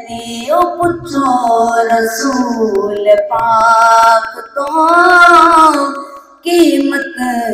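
A boy singing a Punjabi devotional naat into a handheld microphone, in long, gliding held notes, with a short break for breath about six seconds in.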